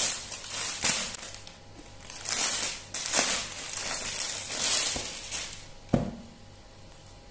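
Clear plastic packaging bag crinkling and rustling in bursts as a folded cotton suit is handled and slid out of it, followed by a couple of light knocks near the end.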